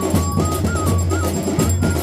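Traditional procession music: fast, dense drumming with a single high melody line stepping up and down over it.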